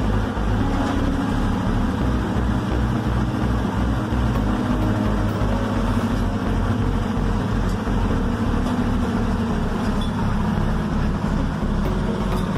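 Air-cooled diesel engine of a hydraulic concrete mixer machine with lift, running steadily with a rapid, even low pulse.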